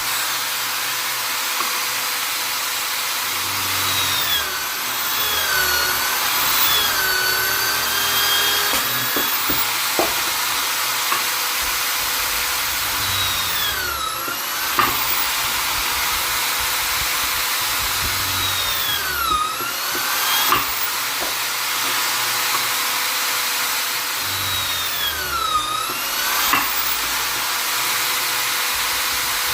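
Vonder electric drill/driver motor running at high speed with a steady whine, its pitch dipping and climbing back about four times: a few seconds in, around the middle, and again near the end.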